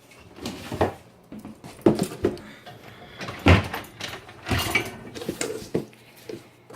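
Dishes and a dishwasher rack being handled while loading a dishwasher: a series of irregular knocks and clatters, the loudest about halfway through.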